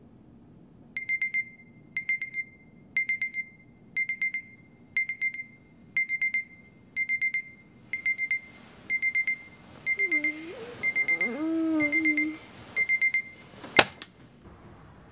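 Electronic alarm clock beeping in short bursts of rapid beeps, about one burst a second. A cat meows over it for a couple of seconds about ten seconds in. A sharp click near the end is the loudest sound, and the beeping stops there.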